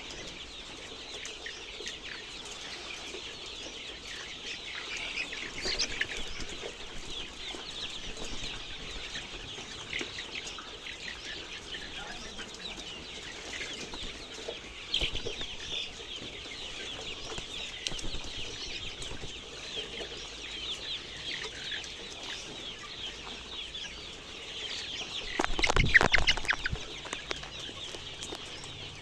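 A flock of chickens calling continuously, many overlapping short high-pitched clucks and chirps, with a louder burst of noise near the end.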